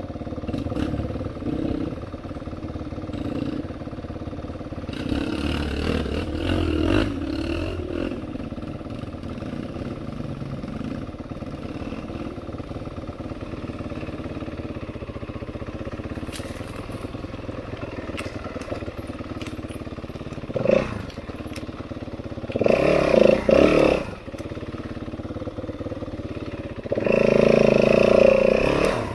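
Yamaha dirt bike engine running at low throttle, with two louder bursts of throttle in the last third.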